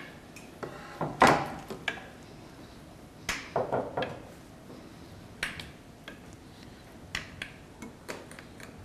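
A metal fork pressed and drawn through stiff dough in a glass baking dish, its tines clicking and scraping against the glass at irregular moments; the loudest scrape comes about a second in.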